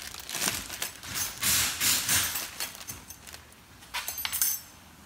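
Clear plastic parts bag of new brake-pad clips crinkling as it is handled and opened, in several bursts, the loudest from about one and a half to two and a half seconds in and another short one near the end.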